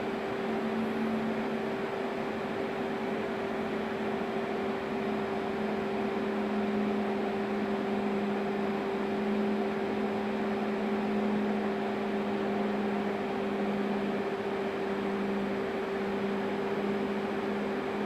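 Machinery of a biomass-fired steam boiler plant running steadily: an even rushing noise with two constant hum tones, the lower one wavering slightly in strength.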